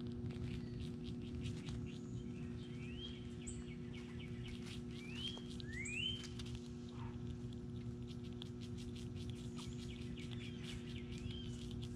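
Dense light clicking and pattering from small backyard animals at a spread of nuts and fruit, with several short rising bird whistles and a steady low hum underneath.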